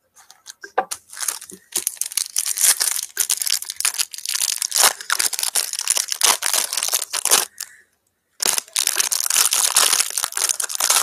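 Basketball card pack wrapper being torn open and crinkled by hand, a dense run of crackly rustling with a short pause about eight seconds in.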